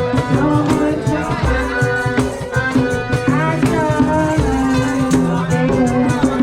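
Music with a steady beat, a shaker and a bass line, with a melody line that bends in pitch, like singing.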